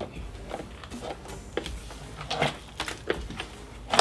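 Scattered light knocks and clicks, about seven in four seconds, of a plastic intake manifold and its fittings bumping and rattling as it is worked loose and lifted off a V8 engine.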